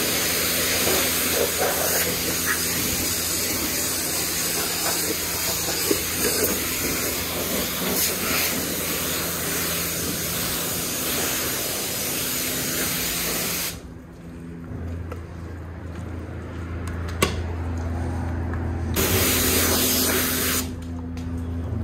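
High-pressure water spray from a self-serve car wash wand, hissing against a car's body, over a steady low hum. The spray drops away about two-thirds of the way through, comes back for a moment, then falls away again near the end.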